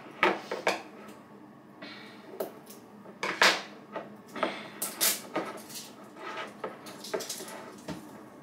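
Hands working to open a container of spice blend: a string of irregular clicks, taps and scrapes from the lid and packaging, the loudest about three and a half and five seconds in.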